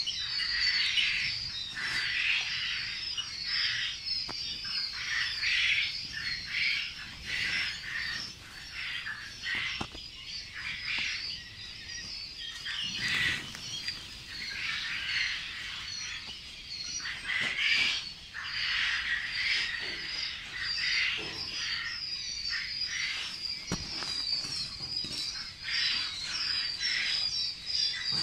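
A large flock of young quail chicks peeping and chirping all at once, a dense, continuous high-pitched chorus of overlapping calls.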